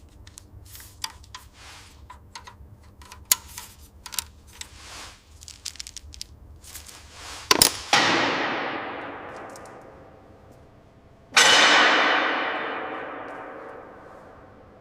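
Scattered small metallic taps and clicks, then two loud metal clangs, the first about eight seconds in and the second about three seconds later, each ringing out and fading slowly.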